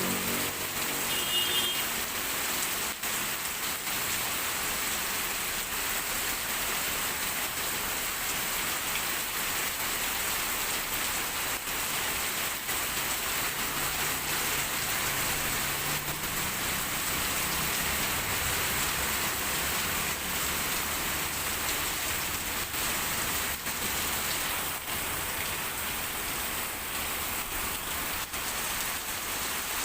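Heavy rain pouring steadily, a dense, even hiss of drops striking the ground and surfaces.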